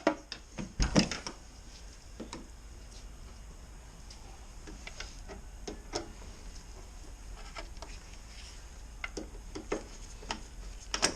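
Irregular light clicks and ticks of a T30 Torx screwdriver working the screw that holds the door handle in the door edge, with a few louder knocks in the first second or so.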